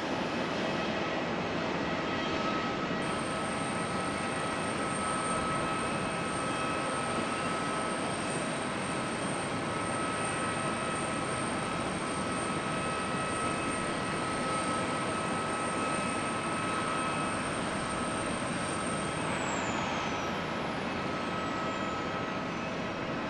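Jet airliner engines running: a steady rushing noise with a steady whine over it. Near the end the high whine glides down in pitch.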